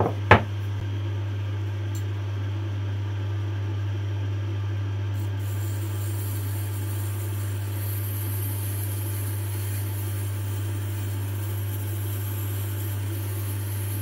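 Tormek T-4 wet sharpening machine running with a steady low hum as its grinding stone turns, with a sharp knock about a third of a second in. From about five seconds in a faint high hiss joins as the spokeshave's steel blade is held against the stone.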